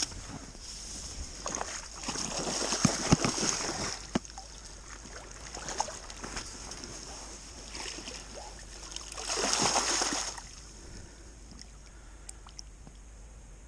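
Water splashing and sloshing as a hooked northern pike is drawn to the bank and scooped into a landing net, in a loud burst about two to four seconds in and another around ten seconds.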